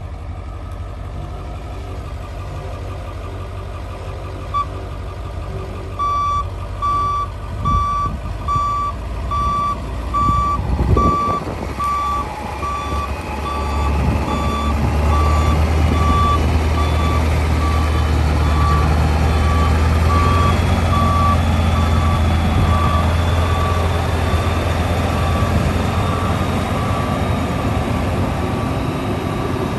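International T444E 7.3-litre V8 diesel in a 1995 International 4700 truck, running, with the truck's backup alarm beeping a steady high beep a little over once a second from about six seconds in. About fourteen seconds in the engine gets louder as it takes load while the truck reverses.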